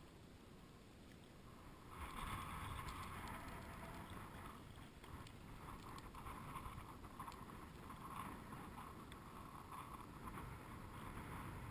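Shallow water sloshing and splashing, with wind on the microphone, growing louder about two seconds in.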